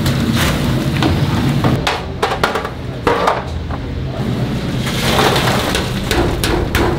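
Kitchen utensils knocking and clattering irregularly over a noisy hiss and a steady low hum, the sounds of cooking at a fried-chicken stall.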